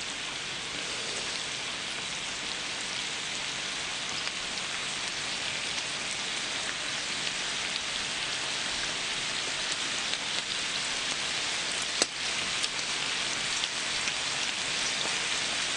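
Pork belly, pork neck and marinated duck and pork sizzling on a large griddle: a steady crackling hiss of frying fat that grows slightly louder, with one sharp click about twelve seconds in.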